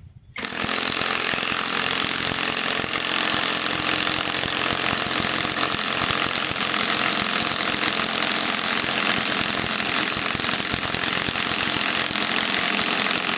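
Cordless compact impact wrench hammering steadily for about 13 seconds on a large fastener without driving it home: the wrench is stalling against the load.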